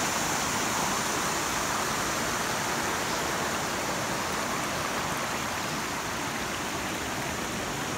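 River water rushing over rocks in small cascades, a steady rush.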